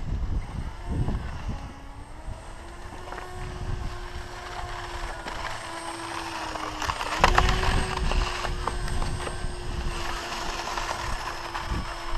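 A steady motor drone holding one pitch, under low rumbling wind buffeting on the microphone, with a louder gust or bump about seven seconds in.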